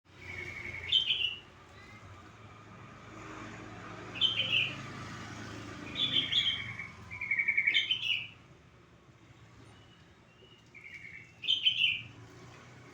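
Yellow-vented bulbul (trucuk) calling: short, bubbly chattering phrases, five loud ones a couple of seconds apart and a softer one near the end, over a faint low rumble.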